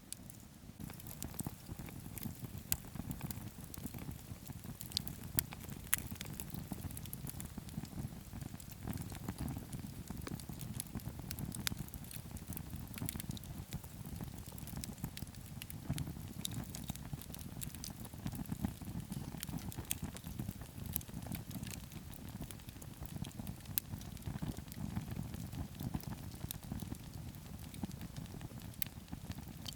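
Wood campfire burning: a steady low rumble of flames with frequent sharp crackles and pops from the burning firewood.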